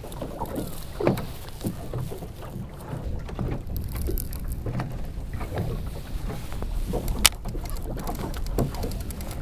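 Water lapping and slapping irregularly against the hull of a small boat, over a steady low rumble of wind on the microphone. A single sharp click sounds about seven seconds in.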